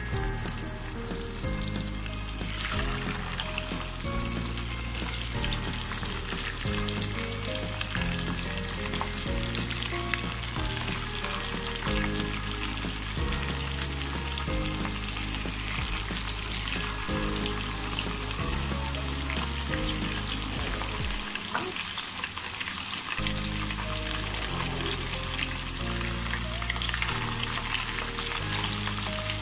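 Batter-coated chicken pakoras deep-frying in hot oil: a dense, steady sizzle and crackle that grows stronger about two seconds in. Low background music runs underneath and drops out for about two seconds past the middle.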